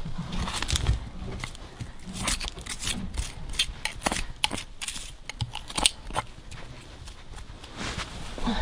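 Ponies' hooves splashing and sloshing through a shallow pond, heard as many irregular sharp splashes and clicks, with a low wind rumble near the start.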